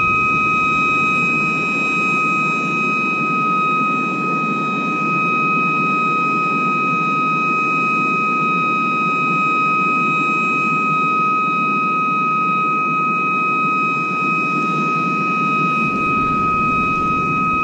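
The hydro dam's warning alarm sounding one steady, unbroken high tone, the signal that more water is about to be let through the dam, over the constant rush of the river.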